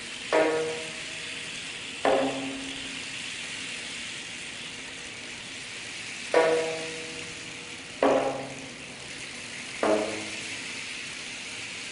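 Geomungo notes struck with its bamboo plectrum: five single sharp plucks spaced a couple of seconds apart, each ringing briefly and dying away, over a steady hiss.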